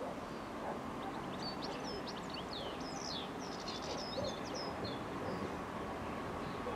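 A songbird singing a quick run of high chirps and trills lasting a few seconds, over a steady low background rumble.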